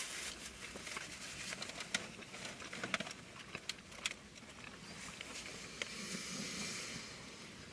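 Close-up eating sounds of people chewing burgers: wet chewing with scattered small mouth clicks and smacks over a faint hiss.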